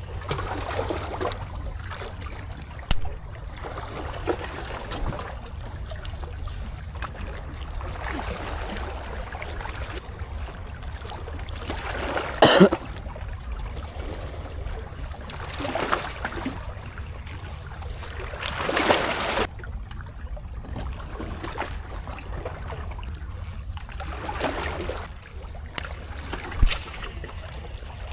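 Sea water washing and slapping against shore rocks at high tide, in noisy surges every few seconds, over a steady low wind rumble on the microphone.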